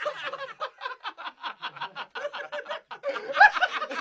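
Rapid, rhythmic snickering laughter in short pulses, about seven a second, with a louder burst about three and a half seconds in.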